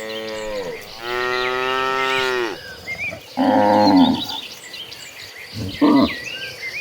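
Cattle mooing, several calls one after another: a long drawn-out moo about a second in, a shorter, louder one midway, and a brief one near the end.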